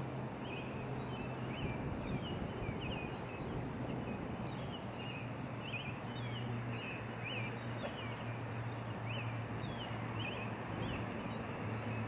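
Outdoor ambience: a steady rushing noise with a low hum beneath it, over which small birds chirp repeatedly in short, high chirps.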